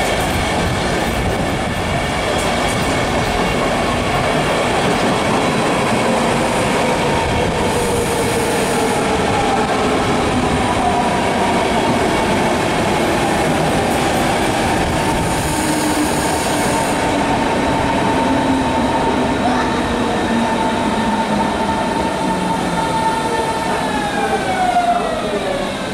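InterCity train of DB coaches passing, a steady rumble of wheels on the rails overlaid with whining tones that sink slowly in pitch and then slide down near the end.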